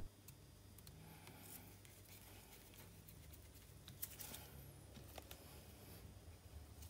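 Near silence with a few faint clicks and scratches of a small precision screwdriver driving tiny screws into a camera sensor board, the most noticeable about four seconds in.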